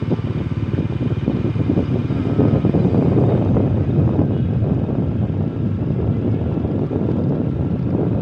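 Steady rumble of a running vehicle, with wind buffeting the microphone.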